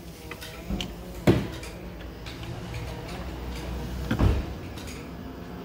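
A few sharp knocks of hard parts being handled, the loudest about a second in and a quick double knock about four seconds in, over a steady low background.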